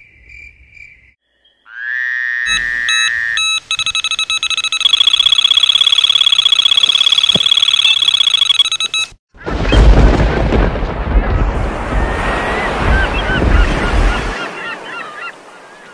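Electronic intro sound effects: a rising synth tone, then steady, stuttering electronic tones for several seconds. These cut to a loud, noisy rush with wavering high chirps over it for about five seconds.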